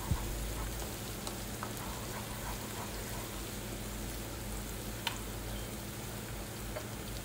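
Finely chopped aromatics frying in oil in a wok: a steady, even sizzle, with a faint click or spatula tap about five seconds in.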